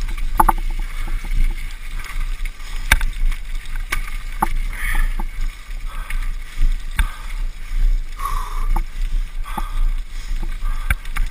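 Wind rumbling on the microphone over tyres rolling along a rough, muddy dirt track, with scattered sharp clicks and rattles from the bike jolting over bumps.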